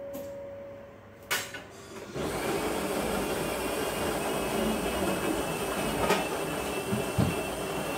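Countertop espresso machine switched on and running: a click, then from about two seconds in a steady mechanical hum with a faint high tone, and a couple of light knocks near the end.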